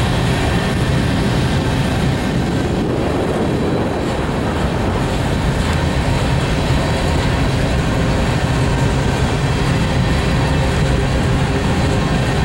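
Freight train of covered hopper cars rolling past on the rails: a steady, unbroken rumble of steel wheels on track.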